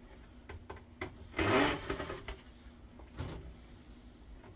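A cordless drill-driver whirs for about half a second, a second and a half in, backing a screw out of the induction hob's casing.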